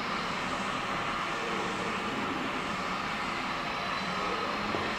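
Steady background hiss and low hum of a large hangar, with no distinct event.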